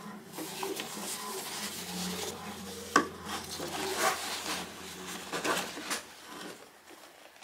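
Hands handling packaging: paper, card and fabric dust bags rustling and rubbing as a wallet is unwrapped, with a sharp tap about three seconds in.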